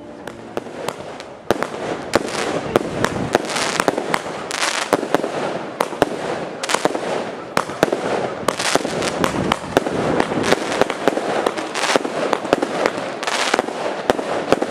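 Firecrackers going off in a long, rapid, unbroken crackle of bangs that grows louder about a second and a half in.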